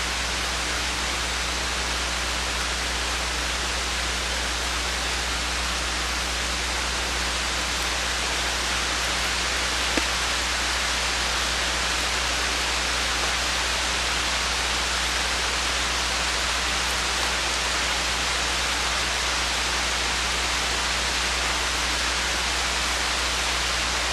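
Steady hiss of falling rain, even throughout, over a constant low hum, with a single sharp click about ten seconds in.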